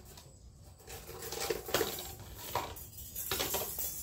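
Laundry being hung on a metal drying rack: wet clothes shaken out in a few quick swishes, with clothes hangers clinking against the metal rail.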